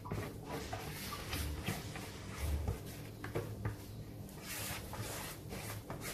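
Plastic spatula scraping thick, wet rice-and-maize batter out of one plastic bowl into another: irregular soft scrapes, light knocks of spatula and bowl rims, and wet slaps of batter.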